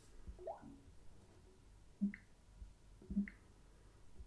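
Samsung Galaxy Note 2 touch sounds: short water-drop blips as the setup screen's next button is tapped. Two sharp blips come about two and three seconds in, after a fainter rising one near the start.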